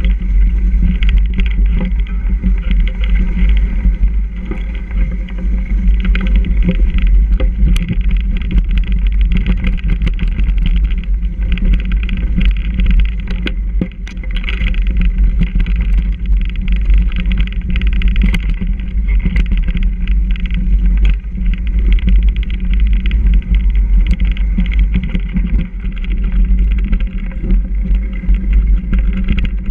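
Mountain bike ridden over a snowy trail: continuous wind rumble on the camera's microphone with tyre rolling noise, and a few sharp knocks and rattles from the bike over bumps.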